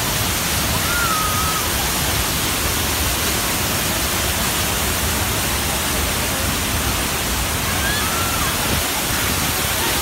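Large waterfall pouring down close by: a loud, steady rush of falling water.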